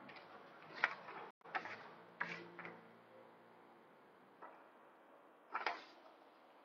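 Faint handling sounds of paper strips and a plastic dye squeeze bottle being moved around: about six short rustles and taps, spaced irregularly.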